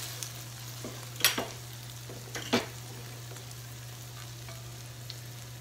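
Spatula scraping and knocking against a nonstick skillet as cooked chicken pieces are scooped out, with two sharp strokes a little over a second apart. Under it, a faint sizzle from the still-hot pan and a steady low hum.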